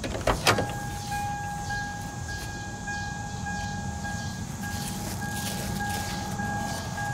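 A click about half a second in, then a steady electronic warning tone held at one pitch: the 2003 Toyota Tacoma's reminder buzzer sounding while its lights are switched on.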